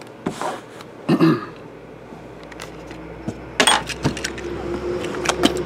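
Shrink-wrapped trading-card boxes being shifted and set down on a table: scattered sharp knocks and taps, the loudest cluster a little over three and a half seconds in.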